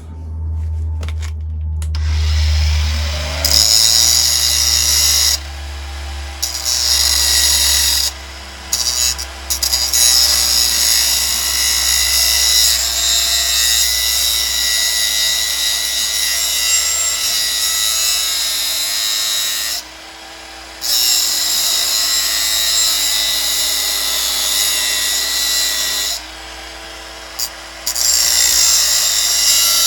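Angle grinder slicing into the steel of a sprocket welded onto a motorcycle countershaft. The disc spins up about two seconds in, its motor pitch dipping as it bites, and the cut is lifted off briefly four times before the disc goes back in.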